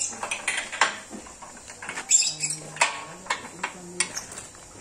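Hand tools clicking and clinking against the steel frame and fittings of a mechanical well-drilling rig being taken apart, a quick irregular series of sharp metallic ticks.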